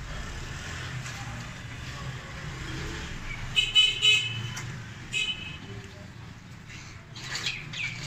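Town traffic with short vehicle horn toots around the middle, the loudest sounds. Near the end, water starts running from a tap into a metal bowl.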